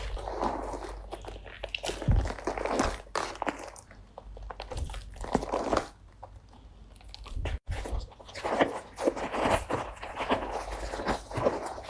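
Slime being squeezed and poked by hand, with dense, irregular crackling and popping.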